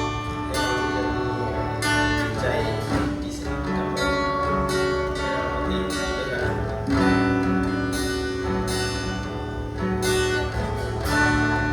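Worship music led by guitar: steady chords changing every second or two over a sustained bass.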